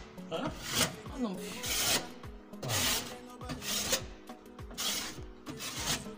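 Plaster of Paris being scraped and rubbed onto the edge of a ceiling opening, in repeated rasping strokes roughly one a second. Music plays faintly underneath.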